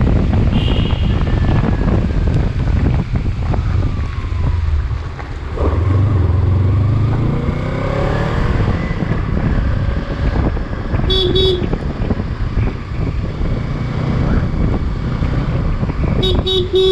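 Motorcycle riding, with a steady engine and road rumble and heavy wind buffeting on the microphone. A vehicle horn toots briefly about eleven seconds in, then sounds in several quick honks near the end.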